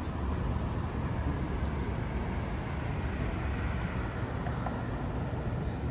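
Steady outdoor city background noise: a low, even rumble with no distinct event standing out.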